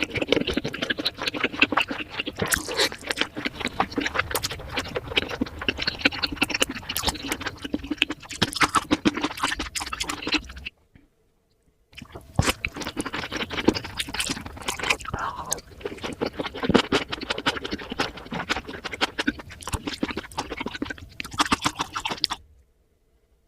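Close-miked chewing of a large salmon nigiri, a dense run of rapid mouth clicks and squishes. It comes in two long stretches, broken by a second of silence about eleven seconds in, and stops a second before the end.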